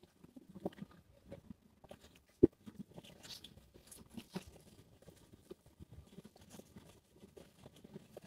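Faint, irregular scuffs and clicks of walking along a paved sidewalk, with one sharp knock about two and a half seconds in.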